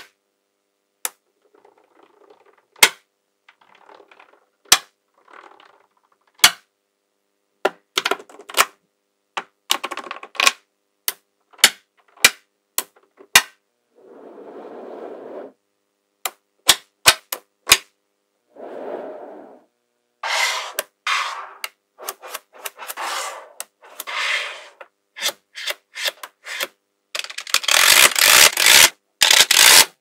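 Small magnetic balls snapping onto one another with sharp clicks, a few seconds apart at first and then coming faster. Twice there is a short spell of balls rustling and scraping together, and near the end a dense clatter as whole strips and sheets of balls snap down.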